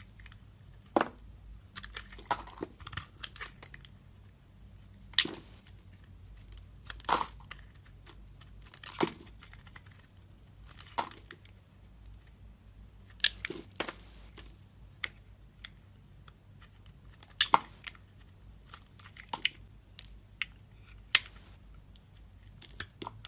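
Bar of soap being cut with a blade: a series of sharp, crisp crunches, one every second or two, some louder than others.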